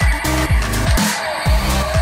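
Electronic dance music with a heavy bass drum beat, about two beats a second.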